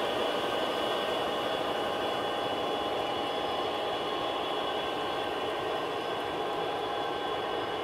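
Norfolk Southern freight train running steadily: a continuous rolling rumble with several steady high whining tones over it.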